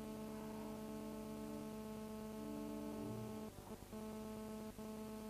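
A held electronic synthesizer tone from the soundtrack music, with a higher note coming and going over it. It breaks off about three and a half seconds in and then resumes.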